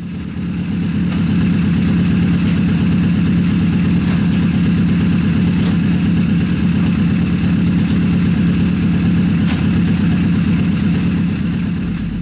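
Honda CBR 1000 inline-four motorcycle engine in a tube-frame buggy running steadily at a constant speed, with no revving.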